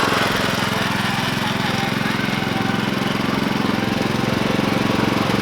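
An engine running steadily at low speed with a fast, even firing beat.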